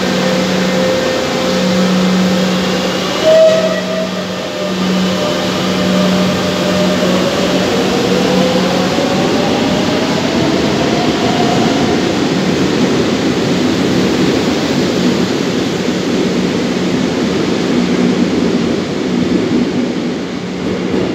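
A Madrid Metro series 7400 train running through the station without stopping: a steady rumble of wheels on rail with a constant electrical hum. There is a brief loud high note about three seconds in, and a motor whine glides upward in pitch midway.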